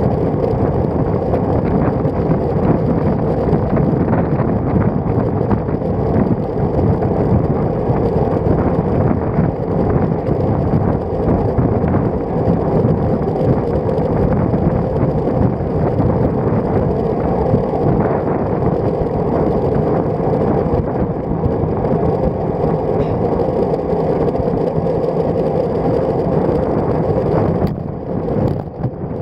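Steady rushing wind and road noise picked up by an action camera mounted on a road bike's stem while riding, dipping briefly about a second before the end.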